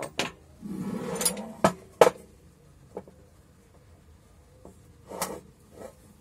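Steel parts of an angle grinder stand clinking and scraping as they are handled and fitted together: a scrape about a second in, a few sharp metal clicks, the loudest about two seconds in, and another short rattle near the end.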